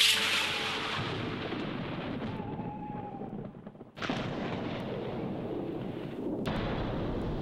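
Film sound effect of deep booming rumbles with no steady pitch, like explosions or thunder. It hits suddenly at the start and dies away into a rumble, then strikes again about four seconds in and once more about six and a half seconds in.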